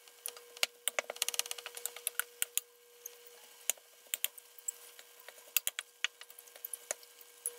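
Wooden spatula stirring ground beef as it browns in a frying pan: irregular light clicks and scrapes of wood on the pan and the crackle of the cooking meat.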